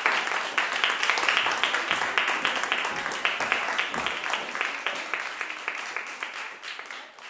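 Audience applauding, the clapping thinning and fading away toward the end.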